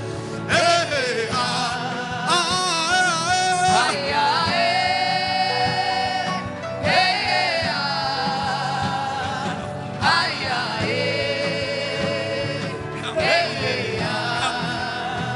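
Gospel worship music: a voice singing long, wavering held notes in phrases of a few seconds, without clear words, over steady instrumental accompaniment.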